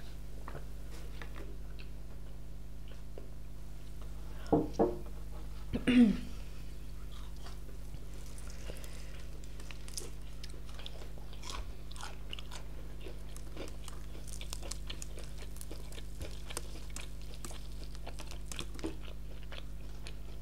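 Close-up eating sounds of crispy fried chicken: the crunchy breading being torn, bitten and chewed, with many small crackles and clicks. Two short louder sounds, a hum or a gulp, come about four and a half and six seconds in.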